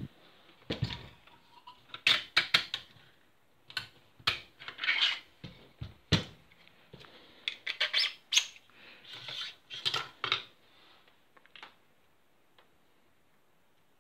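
Hands handling and fitting plastic and metal airsoft rifle parts: irregular sharp clicks, light knocks and brief scraping rustles.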